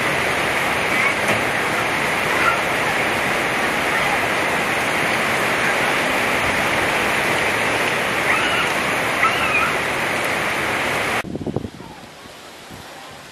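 Heavy monsoon rain falling on corrugated tin roofs, a dense steady hiss. About eleven seconds in it cuts off abruptly, leaving quieter gusting wind.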